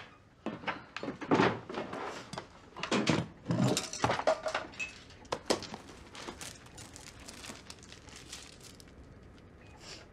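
Small hard objects clattering and knocking as things are rummaged through and set down, then softer clicks and rustling as a plastic first-aid kit is opened and its contents handled.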